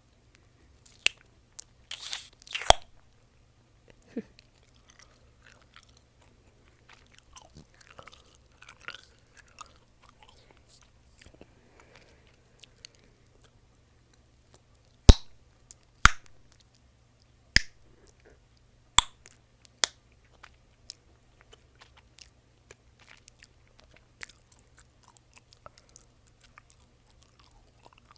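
Close-miked chewing of mint chewing gum: wet, sticky mouth sounds broken by sharp gum pops and snaps, several loud ones in quick succession about halfway through.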